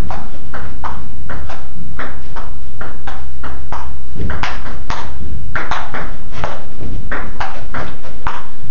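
Table tennis rally: the ball clicking off the paddles and the table in a quick back-and-forth, two or three sharp ticks a second, over a steady low hum.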